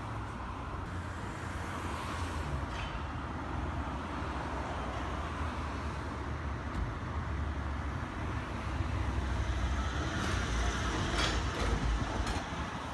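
Trolleybuses in city street traffic: a steady low rumble of road noise, growing louder as a trolleybus passes close by near the end, with a few sharp clicks.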